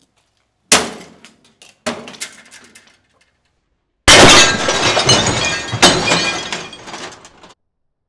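Two sharp strikes of a golf club on a microwave oven's body, then, about four seconds in, a bowling ball lands on the microwave's glass turntable plate and shatters it: a sudden loud crash followed by several seconds of breaking, tinkling glass that dies away.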